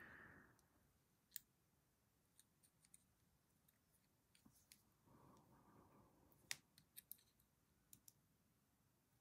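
Near silence broken by faint, scattered clicks of steel pliers and the soft lead cradle frame being gripped and bent by hand, the sharpest about six and a half seconds in.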